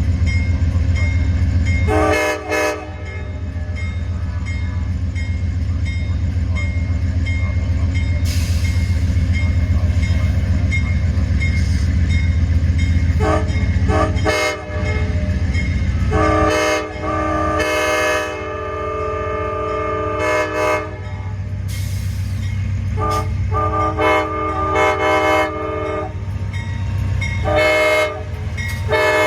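Amtrak P42DC locomotive's Nathan K5LA five-chime horn sounded in a series of blasts, short ones and one long one of about four seconds midway, over the steady low rumble of the locomotive's diesel engine.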